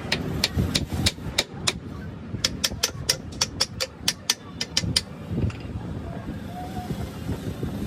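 A hammer tapping a steel drift held against a large compressor piston: about twenty sharp metallic strikes in quick runs, stopping about five seconds in, over a low workshop rumble.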